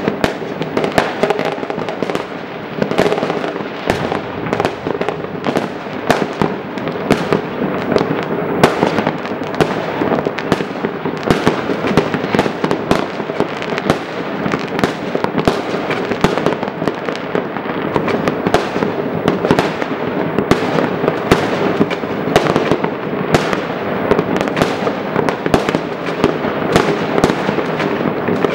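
Many fireworks going off at once from different places: a dense, unbroken mix of bangs, pops and crackling.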